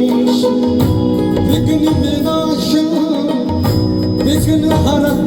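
Live band music from a Punjabi folk concert stage: a gliding melody line over sustained tones, with a low drum beat that drops out for about a second and a half in the middle and comes back.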